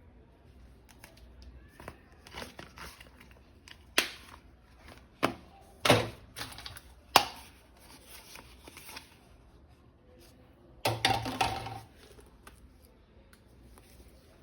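Hands handling a plastic toy gun and its packaging: soft rustling broken by four sharp plastic clicks or knocks around the middle, then a dense clattering burst of about a second near the end.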